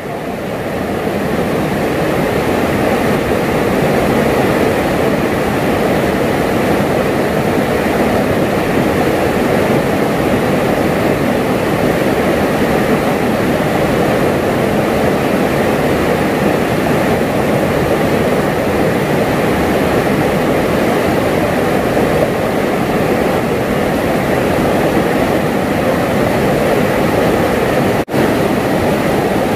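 Steady, loud rush of flowing river water, with a momentary dropout near the end.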